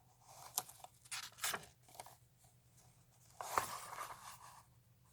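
Comic books being handled: a few short bursts of paper rustling, with a longer rustle about three and a half seconds in.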